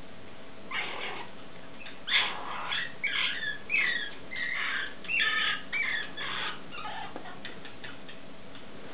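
Stone marten pup squeaking as it is bottle-fed: a quick run of high, bending chirps and squeals that starts about a second in and dies away around seven seconds.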